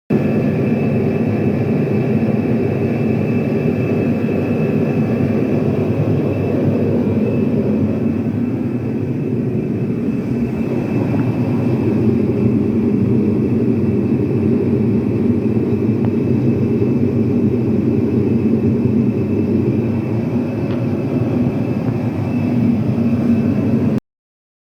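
A steady, loud engine-like drone that holds evenly with no clear changes, then cuts off abruptly near the end.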